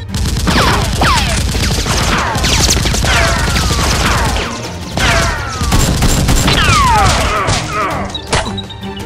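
Rapid gunfire sound effects: dense volleys of shots over a low rumble, laced with many falling whistles like rounds whizzing past. The barrage eases briefly about halfway through, picks up again, and ends with a single sharp crack near the end.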